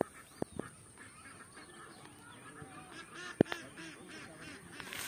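A flock of birds calling, many short calls overlapping, with a few sharp clicks, the loudest about three and a half seconds in.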